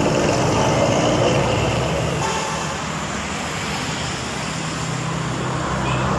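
A bus engine running and road noise as traffic passes, loudest at first, easing off in the middle and building again near the end.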